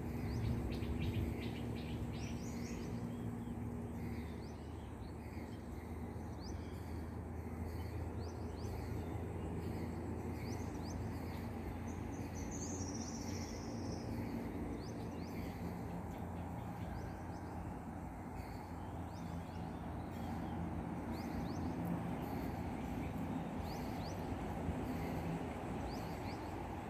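Outdoor garden ambience: scattered short high bird chirps and insect calls, with one longer bird call about halfway through, over a steady low rumble.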